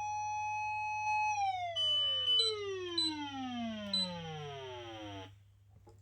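Osaka Siren MK-D1 electronic siren amplifier sounding a fire-engine-style wail: the tone holds at a high pitch, then slides steadily down and cuts off about five seconds in. A few short higher tones sound over it partway through the fall.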